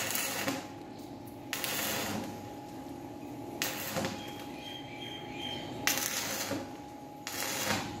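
Stick (arc) welder crackling and hissing in five short bursts, each about half a second long, as the electrode is struck against the steel door to tack-weld the lock in place, over a steady faint hum.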